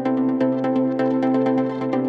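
Electronic background music with a steady, fast beat over held synth tones.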